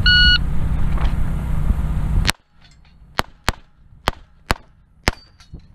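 A short electronic shot-timer beep, then six pistol shots fired by the shooter wearing the camera: the first about two seconds after the beep, the next four in two quick pairs, and a last one near the end. A short ring follows the final shot.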